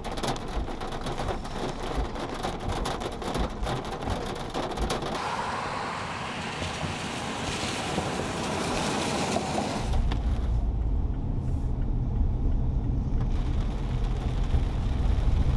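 Rain pattering on a car windshield as dense ticks over a steady hiss, then a smoother rain hiss with a vehicle's wet tyres swishing past, swelling about eight seconds in. From about ten seconds a steady low road rumble inside a moving car.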